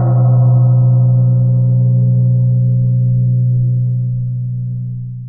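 A single low gong stroke, struck once and ringing on with a deep hum and slowly fading overtones, dying away faster toward the end; it sounds as the closing signal of a one-minute relaxation session.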